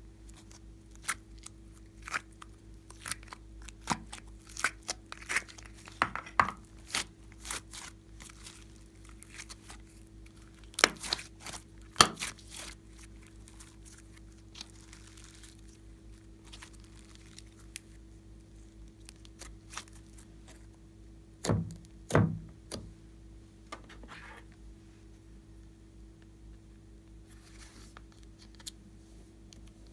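Plastic slime containers and glossy slime being handled: a run of sharp clicks, crackles and peeling or tearing sounds, two louder knocks a little past ten seconds in, and a cluster of thumps a little past twenty seconds. Steady low hum underneath.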